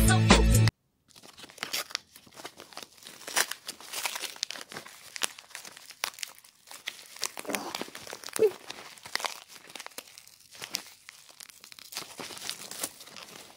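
Pop music cut off abruptly in the first second, then a parcel's packaging being crinkled and torn open by hand: an irregular run of crackles and rips.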